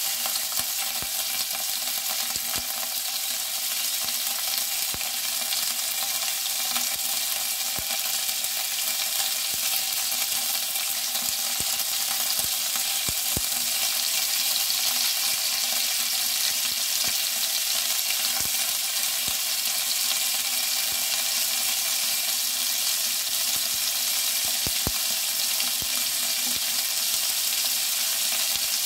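Halved cocktail sausages and pieces of meat sizzling in a frying pan: a steady hiss, with scattered clicks and scrapes of a spatula stirring them against the pan.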